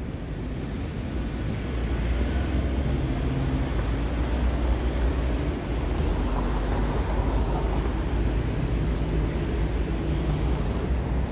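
City street traffic with a heavy vehicle's engine running close by. It grows louder over the first couple of seconds, then holds steady.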